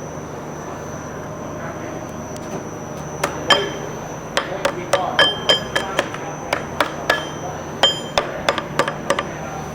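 A hammer tapping a metal retaining band into its seat on the end of a pump stator: a quiet stretch, then about twenty light, irregular taps with a short metallic ring. A steady shop hum and a faint high whine run underneath.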